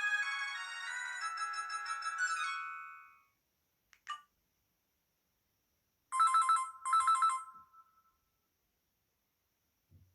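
Alcatel VM202 mobile phone's built-in ringtones playing through its small speaker: a polyphonic melody fades out in the first three seconds, a short beep follows about four seconds in, then a new ringtone of two quick trilling rings begins about six seconds in.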